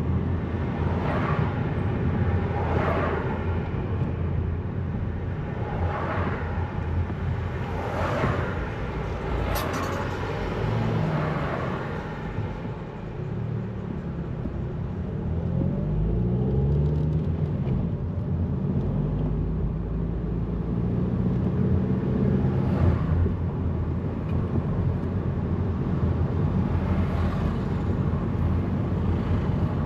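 Car on the move: steady engine and road rumble, with the engine note rising and falling in steps around the middle.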